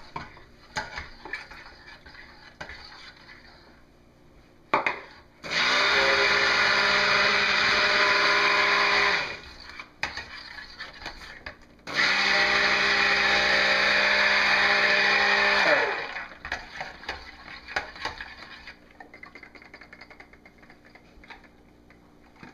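Immersion stick blender mixing cold process soap batter in a stainless pot, run in two bursts of about four seconds each with a short pause between. Each burst is a steady motor whir that winds down in pitch as it switches off.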